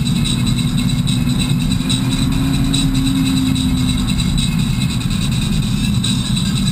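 Steady engine and road rumble of a BMW E46 cruising at constant speed, heard from inside the cabin. A low drone comes up in the middle and fades again.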